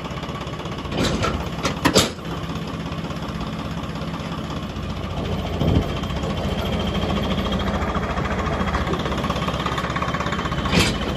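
Tractor diesel engine running steadily, driving the hydraulic ram that tips the loaded trolley. A few sharp knocks come about one to two seconds in and twice near the end.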